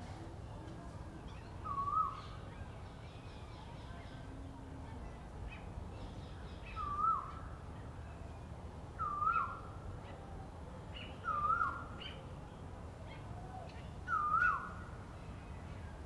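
Asian koel calling: five short, clear notes a few seconds apart, each rising briefly and then dropping in pitch.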